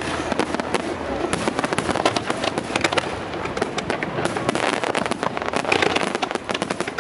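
Fireworks display: shells bursting in quick succession, a dense, unbroken crackling of many sharp pops and cracks.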